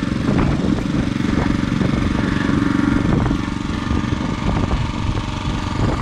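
Small petrol engine of a water pump running steadily, pumping water out of a tidal channel, with scattered knocks over its hum.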